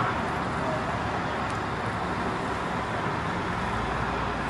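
Steady hum of road traffic, cars passing on a busy avenue.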